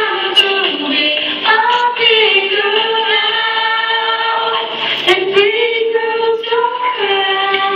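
A young girl singing solo into a microphone, amplified, holding long sustained notes.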